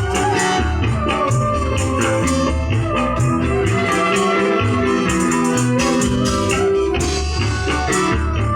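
Band music playing loud and steady through a sound system during a sound check: keyboard organ over a regular bass beat, with tambourine-like percussion.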